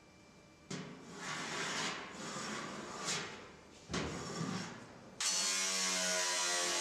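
Tin snips cutting galvanized sheet steel in several uneven strokes. About five seconds in, this gives way suddenly to a loud, steady angle grinder cutting the sheet metal with its disc.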